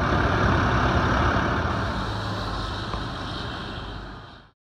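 Fire truck's diesel engine idling close by, a steady low rumble under an even rushing noise. It fades over the last couple of seconds and cuts off abruptly.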